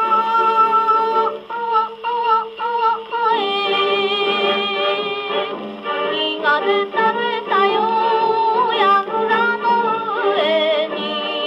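Columbia G-241 portable wind-up gramophone playing a 1950 Japanese 78 rpm boogie record: singing over a band, with a thin sound lacking deep bass.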